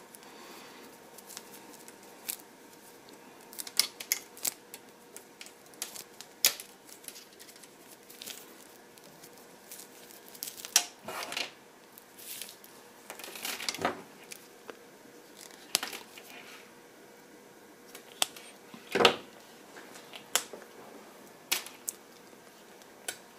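Wire and small crimp terminals being handled and worked with hand tools: scattered sharp clicks and snips, with a few longer scraping strokes about halfway in and again near the end, the loudest one a little after three-quarters of the way through.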